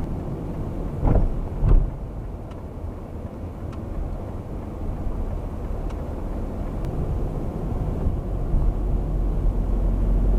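Car driving on a country road, heard from inside through a dashcam: a steady low rumble of engine and road noise. Two sharp thumps about a second in are the loudest sounds, and a few faint clicks follow.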